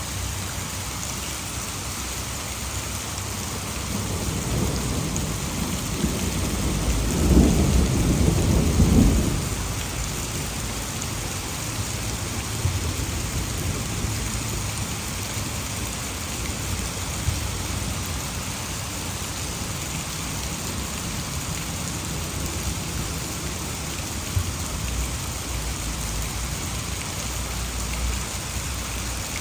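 Heavy rain falling steadily, with a roll of thunder that builds about four seconds in, is loudest around eight seconds and dies away a couple of seconds later.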